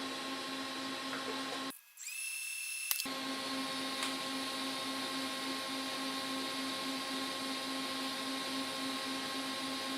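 A motor-driven shop tool running steadily, with a constant hum over a hiss. It cuts out briefly just under two seconds in and comes back with a short rising whine that settles to a steady pitch.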